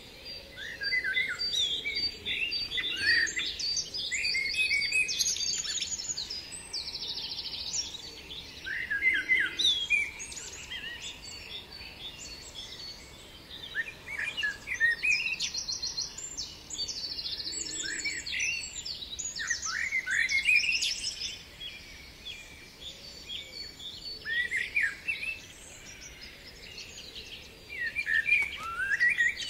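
Birdsong from several birds: chirps, quick trills and down-slurred notes in phrases that come and go every few seconds.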